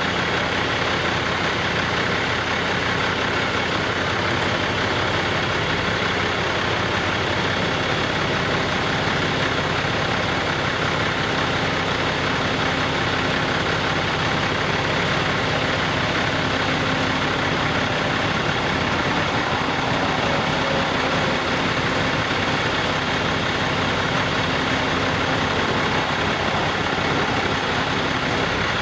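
Heavy tow trucks' diesel engines running steadily, driving the hydraulic booms during a heavy lift.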